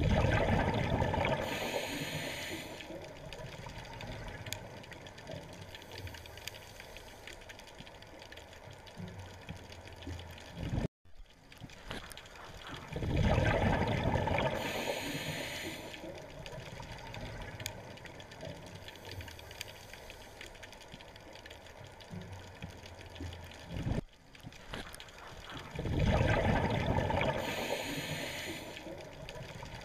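Scuba diver's regulator exhaust bubbles heard underwater: three loud bubbling rushes, each a couple of seconds long and fading, about every thirteen seconds as the diver breathes out. Quieter gurgling and faint crackle fill the gaps.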